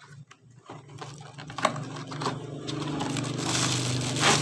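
Clear plastic wrapping crinkling and a cardboard box being handled while a microphone stand is unpacked: a few sharp clicks at first, then steady crinkling from about a second and a half in.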